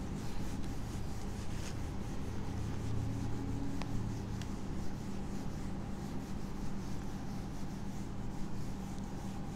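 Whiteboard being wiped clean with a handheld eraser: continuous soft rubbing of the eraser pad across the board, over a steady low hum.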